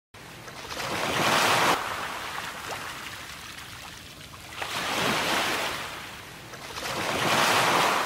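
Ocean surf: three waves break and wash out in turn, each swelling and fading over two to three seconds.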